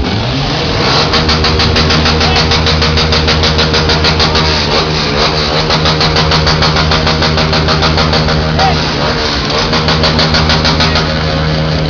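A vehicle engine running steadily at idle, with a fast even pulsing that starts about a second in and stops near the end.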